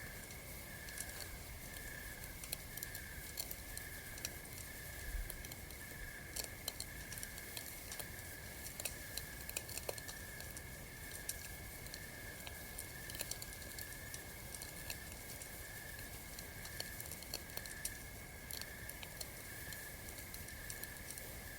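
Campfire crackling with irregular sharp pops and snaps, over an even, pulsing high tone and a fainter steady high tone in the night ambience.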